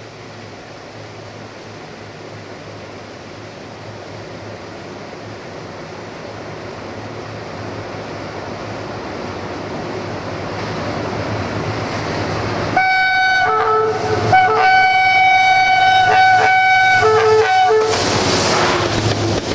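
Diesel locomotive approaching with a rumble that grows steadily louder, then sounding a long horn blast for about five seconds, and reaching the camera with a loud rush of wheel and engine noise near the end.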